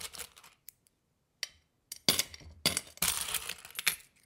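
Clinking, clattering sound effect in bursts: one fading out just after the start, then two more about two and three seconds in, each with a short ringing tail.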